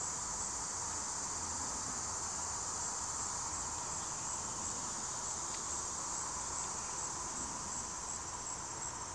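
Steady, high-pitched insect chorus, a continuous shrill trilling with a faint even pulsing, over a fainter lower hum.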